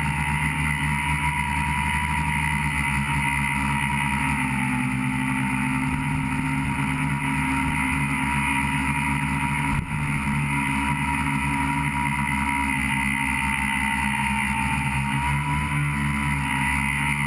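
Tricopter's electric motors and propellers whining steadily, heard through the onboard camera, the pitch sagging and recovering slightly with throttle changes. Loudness drops briefly about ten seconds in.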